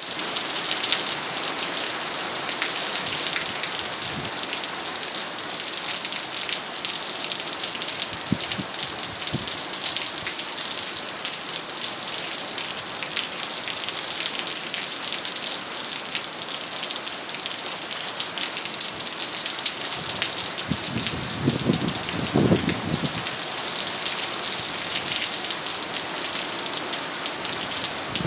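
Heavy hurricane rain pouring steadily onto pavement and a roof, with water streaming off the roof edge. A low rumble rises briefly about three quarters of the way in.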